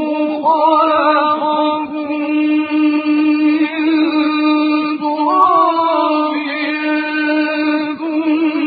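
A solo male voice chanting Quran recitation in a slow melodic style, holding long drawn-out notes on a steady pitch with ornamental turns about a second in and again around five seconds in.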